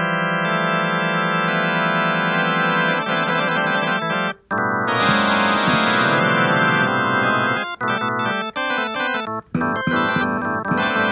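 Keyboard music with an organ-like sound: long held chords, a brief break about four and a half seconds in, then busier, quicker-changing notes with a couple of short drop-outs.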